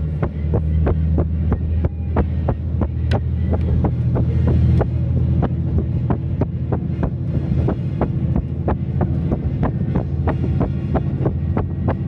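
KiHa 185-series diesel railcar under way: the diesel engine's low drone, easing off about five seconds in, with a steady run of clicks, about three a second, from the wheels on the rails.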